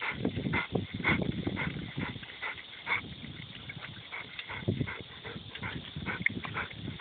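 Two dogs lapping water from a metal bowl: an uneven run of wet laps and splashes, about two a second.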